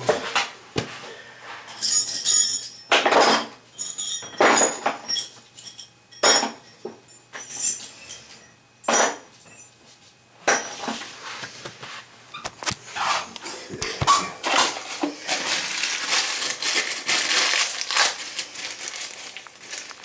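Irregular sharp knocks, clinks and clatters of hard parts being handled, with a longer stretch of rustling and scraping near the end.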